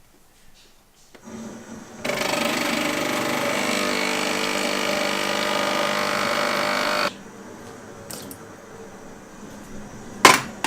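Coffee machine's pump buzzing steadily for about five seconds, starting about two seconds in and cutting off suddenly. A quieter hum follows, then a sharp click near the end.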